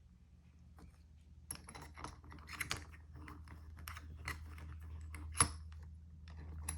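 Light clicks and clinks of a plastic-bodied door lock cylinder and metal tools being handled and set in a vise, with one sharper click about five and a half seconds in, over a low steady hum.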